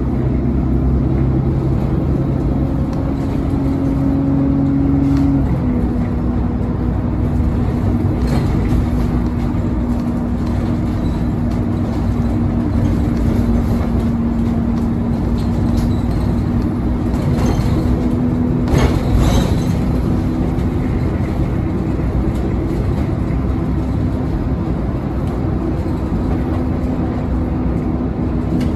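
City bus heard from inside the passenger cabin while driving: a steady engine and drivetrain hum over road and tyre noise. The hum drops slightly in pitch about five seconds in, and a few light knocks or rattles come partway through.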